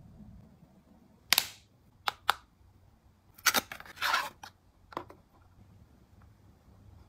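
A small cardboard skincare box being opened and a plastic bottle slid out of it: a few sharp snaps and scrapes of card, with a longer scraping slide about four seconds in.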